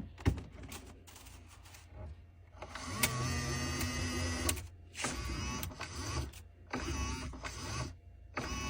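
Bambu Lab X1 Carbon 3D printer's filament feed motors loading a new spool of ABS filament. After a single click near the start, the motors whine in four runs of one to two seconds each, with short pauses between them.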